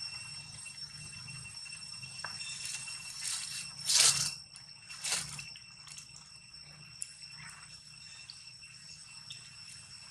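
Steady high-pitched drone of forest insects, with two short loud rasping rustles about four and five seconds in.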